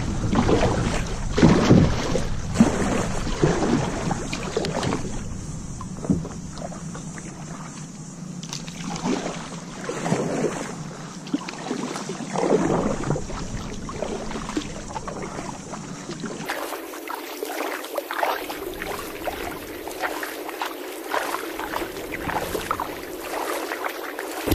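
Kayak paddle strokes splashing in the water, a stroke every second or two.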